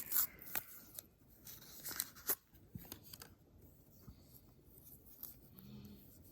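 Close-up handling noises from small watch-repair work: a few sharp clicks and scrapes in the first two and a half seconds, then fainter rubbing.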